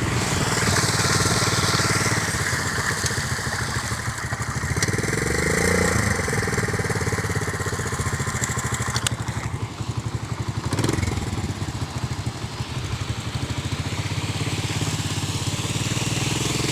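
Small motorcycle engine running steadily while being ridden, its pitch rising and falling briefly about six seconds in.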